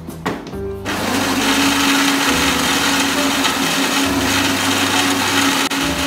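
Built-in grinder of a Gaggia Anima XL super-automatic espresso machine grinding beans for an espresso shot: a loud, steady grinding with a motor hum, starting about a second in just after a click from the machine's controls.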